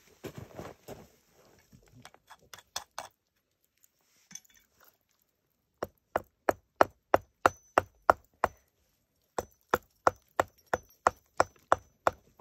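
A hand hammer striking rock in quick, even blows, about three a second: a run of nine strikes about halfway in, a short pause, then another run of ten. Before that, rustling and footsteps on loose rock.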